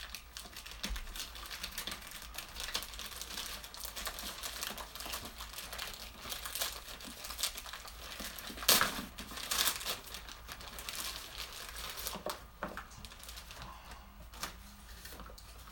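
Plastic mailing bag crinkling and tearing as it is pulled open by hand, with two louder rips a little past halfway.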